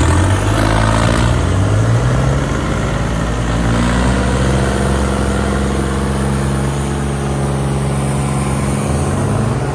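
Diesel tractor engine revving up, its pitch rising over the first couple of seconds, then running steady at high revs.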